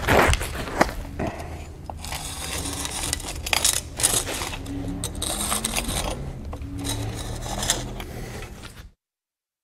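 Paver marking tool drawn across laid clay pavers, its metal bar and guide block scraping and knocking against the bricks in a string of uneven scrapes, with a loud knock at the start. The sound cuts off suddenly near the end.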